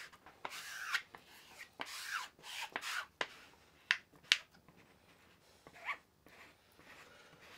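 A hand rubbing over glue-soaked fabric on a plywood board to smooth it and spread the glue, a run of short swishing strokes with faint sliding squeaks. Two sharp clicks come about four seconds in.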